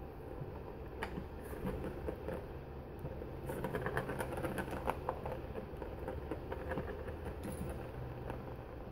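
A plastic ball rolling and rattling around a circular plastic track toy as a kitten bats at it, with a run of quick clicks and knocks around the middle.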